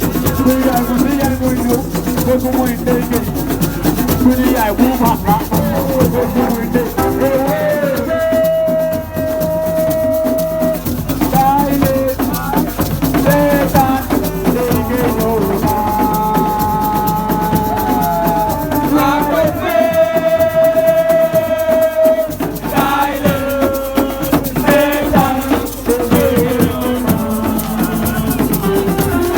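Music with a continuous shaker rattle and drums, with several long held pitched notes over it.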